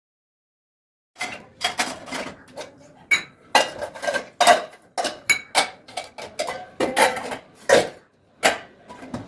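Washed metal kitchen vessels and utensils being put away: a run of clinks and clatters as pots, plates and cutlery knock against each other and against shelves, some with a short metallic ring. It starts about a second in, after digital silence.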